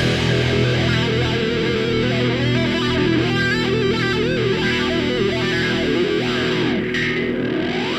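Background music: distorted electric guitar, its notes wavering and sliding, with sweeping glides near the end.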